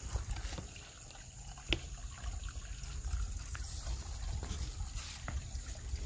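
Faint trickle of spring water seeping out of a rock hole and running over mud and stones, under a low rumble with a few sharp clicks.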